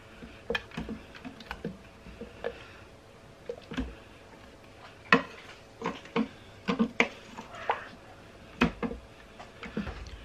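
Wooden spoon stirring thick corn chowder in a stainless steel Instant Pot inner pot, with irregular knocks and scrapes against the pot's side.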